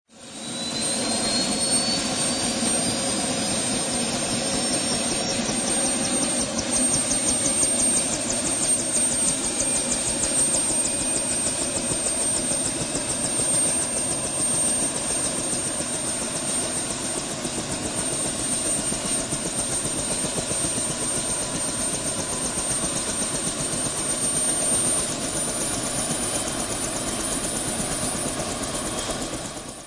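Helicopter starting up: a turbine whine climbs steadily in pitch over the first several seconds, then holds as a high steady whine while a fast, even beat of the spinning rotor blades builds under it. Near the end the whine steps up slightly in pitch again.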